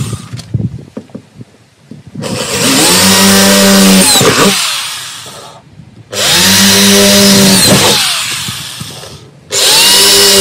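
Cordless drill motor running in three bursts of a few seconds each, drilling holes through the van's body panel; its pitch rises as it spins up and sags as it bites. The last burst is short and ends abruptly near the end.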